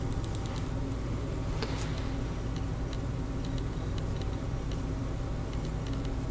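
A steady low hum with faint, irregular light ticks scattered through it.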